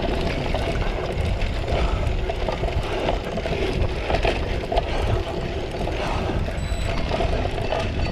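A cyclocross bike ridden hard over rough grass, its frame and drivetrain rattling and clicking, under a steady deep rumble of wind on the microphone.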